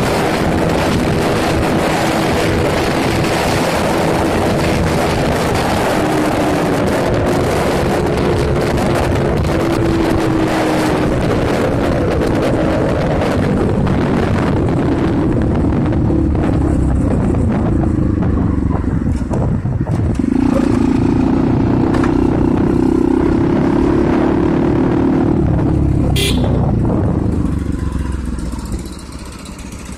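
A motor vehicle's engine running on the move, its pitch rising and falling over a loud rushing noise. The sound drops away sharply near the end.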